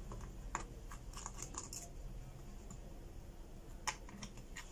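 Precision screwdriver turning out the small screws of a smartphone's plastic midframe: faint scattered clicks and scrapes of the bit on the screws, the sharpest a little under four seconds in, over a low steady hum.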